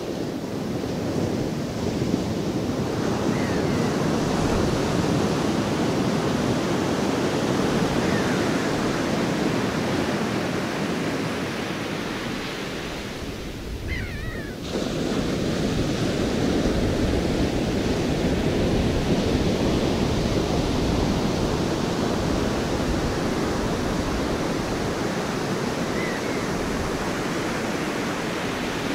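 Pacific Ocean surf washing in a steady, surging rush that fades down about halfway through and then comes back suddenly at full strength.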